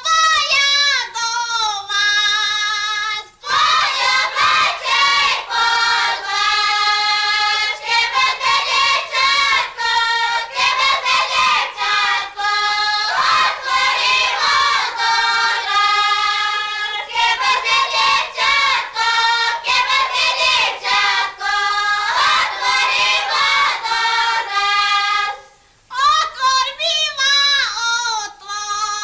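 Village women singing a Slovak folk song in high voices, long held phrases with short breaks about three seconds in and near the end.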